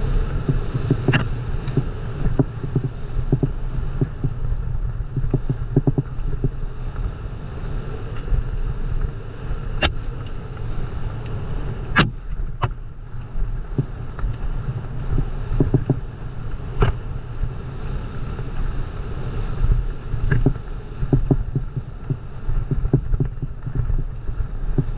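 Bike ride over a rough trail: a steady low rumble with frequent knocks and rattles, and two sharp clicks about ten and twelve seconds in.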